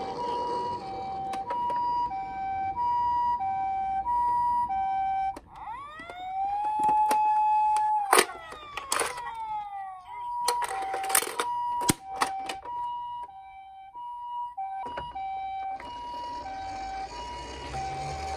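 A toy ambulance's electronic two-tone hi-lo siren, the Japanese pii-poo pattern, switching pitch about every two-thirds of a second. About five seconds in it changes to a wail that rises, holds and then falls. Several sharp clicks and knocks follow, the loudest sounds here, and the two-tone siren then returns more faintly under a rising hiss.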